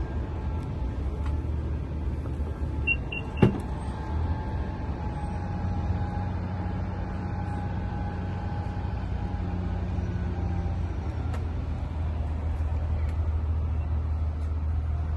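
Power liftgate of an Infiniti QX80 opening: three quick warning beeps, a sharp latch click, then the electric liftgate motor running steadily for about seven seconds as the tailgate rises, over a low steady rumble.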